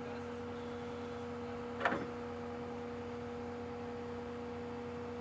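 Excavator engine running with a steady hum, and one sharp metallic clank about two seconds in.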